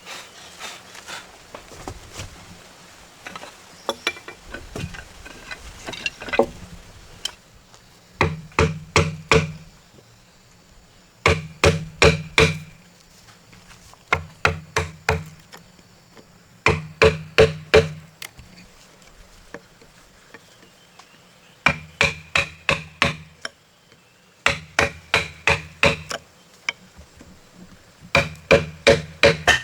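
Hammer blows on wood in short runs of about five quick strikes, with pauses of a second or two between runs. Lighter scattered taps and knocks come first.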